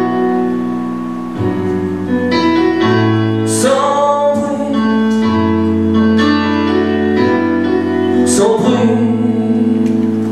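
A male singer performing into a handheld microphone over backing music with sustained keyboard chords. The sung phrases come and go over steady chords.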